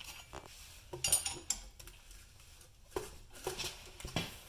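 Metal tools clinking and knocking on the hub bearing's mounting bolts: a cluster of sharp clinks about a second in, then single knocks near three and four seconds.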